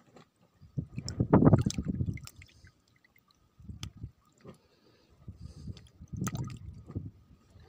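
Water sloshing and lapping in a white bucket of shrimp-acclimation test water, in uneven bursts, the loudest about a second in.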